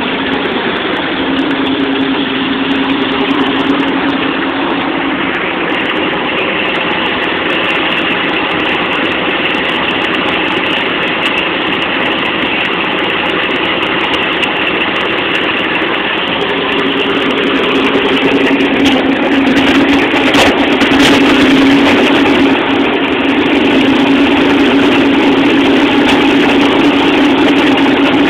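Piston engines of a high-wing twin-engine propeller plane running steadily at idle with a low, even drone. They grow louder about two-thirds of the way through.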